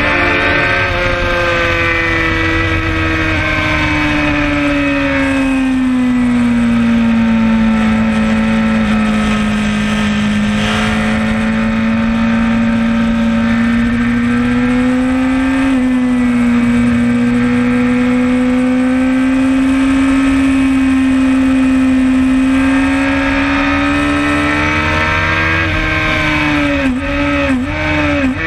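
Suzuki GSX-R sportbike's inline-four engine with an aftermarket Werx exhaust, running hard at near-steady revs on track, its throttle restricted to three-quarters opening. The pitch sags slowly early on, holds, climbs again and then dips sharply a few times near the end.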